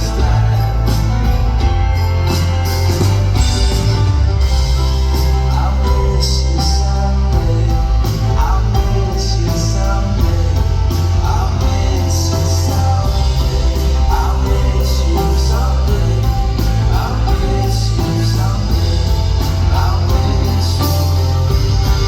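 Indie folk-rock band playing a song live: full band with strong bass and a steady drum beat.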